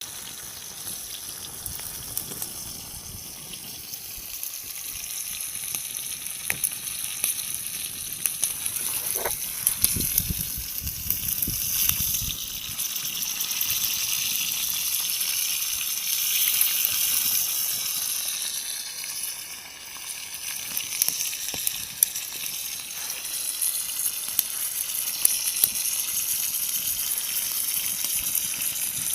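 Sausages sizzling over a campfire, a steady high hiss with scattered sharp pops of spitting fat and crackling wood.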